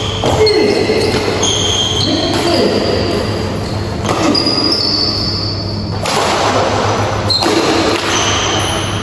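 Badminton rally in an echoing hall: sneakers squeak sharply and briefly on the court floor again and again, with racket strikes on the shuttlecock.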